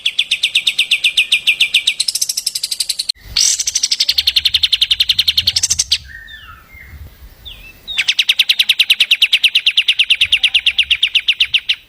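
Songbird singing long, fast trills of evenly repeated notes, about ten a second, in bursts that stop abruptly, with a quieter gap of a few short chirps in the middle. This is a recorded 'masteran' song, played for cage birds to copy.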